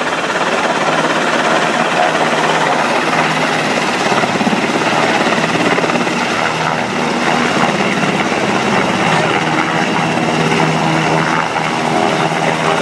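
A UH-60 Black Hawk helicopter hovering low and descending to land, its main rotor and engines running with a loud, steady thrum.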